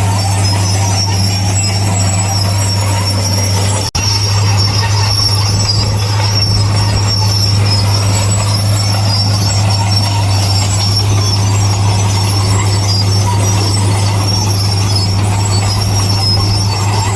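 Heavy diesel earthmoving machinery running steadily, a deep drone with a high metallic squeal above it. The sound breaks off for an instant about four seconds in, then carries on.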